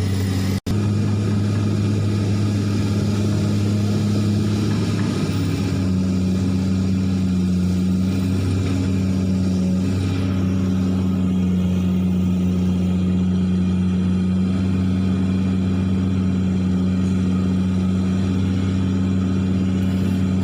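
Komatsu hydraulic excavator's diesel engine running steadily at working speed, holding an even pitch, with a momentary cutout just under a second in.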